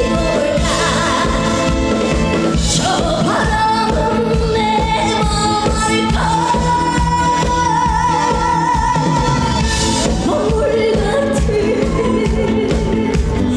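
Female trot singer singing live with full band accompaniment over a steady beat, holding long wavering notes.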